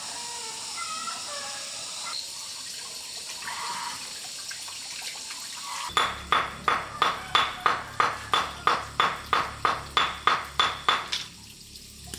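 A steady rushing noise with faint short calls in it, then from about halfway a run of about sixteen even strikes, roughly three a second, that stops shortly before the end.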